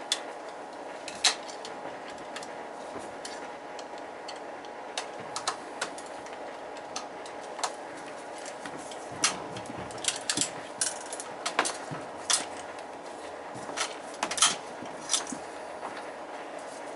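Irregular metallic clicks and clinks of hand tools and small parts while an oil burner's primary control is taken off, over a steady low hum.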